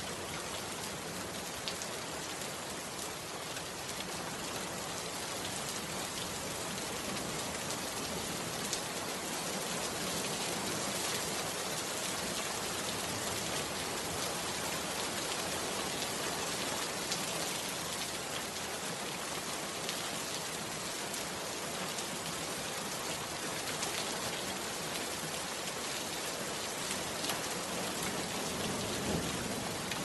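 Steady rain falling: an even hiss with scattered sharper drop taps.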